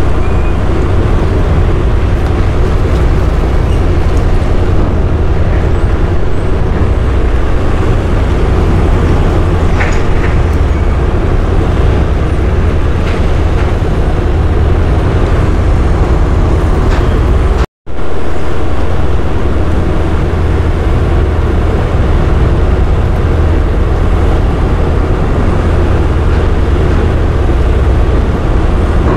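Steady, loud low rumble of a large diesel engine, from the car ferry at the landing, with a hiss of wind and water over it. The sound cuts out for an instant about 18 seconds in.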